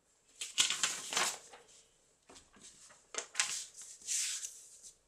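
Rustling and scraping as a canvas drop-cloth page and a wooden-backed rubber stamp are handled on a cutting mat. There is a longer spell of rustling about half a second in and two shorter ones after the three-second mark.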